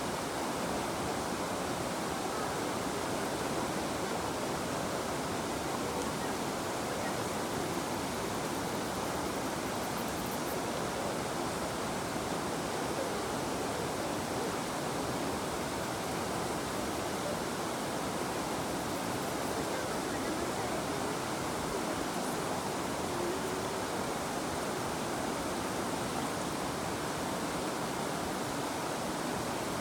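River water flowing steadily over its bed, a constant rushing noise.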